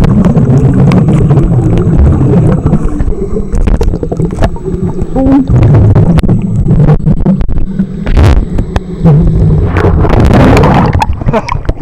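Muffled underwater sound in a swimming pool: a loud, low rumble of churning water with bubbling and scattered clicks as swimmers move around.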